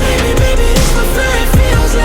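Electronic dubstep-style music with heavy bass and repeated falling bass drops.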